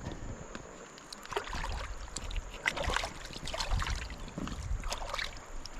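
Fish being cleaned by hand at the water's edge: irregular scraping, clicking and handling noises with small sloshes of water.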